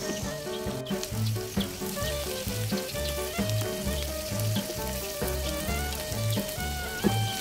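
Background music with a steady beat, over greens and onions sizzling as they fry in an aluminium pan.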